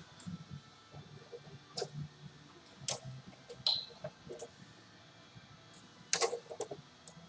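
Scattered clinks and knocks of metal tools and engine parts being handled during an engine teardown, with the loudest cluster about six seconds in. One knock, near the middle, leaves a short metallic ring.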